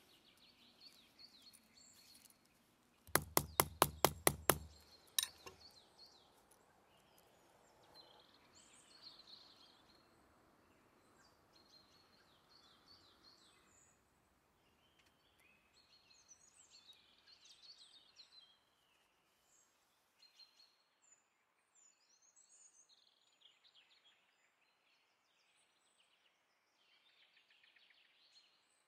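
Back of an iron axe tapping a rivet on a bronze belt buckle: about eight quick, light blows in under two seconds, then one more a moment later. Faint birdsong chirps throughout.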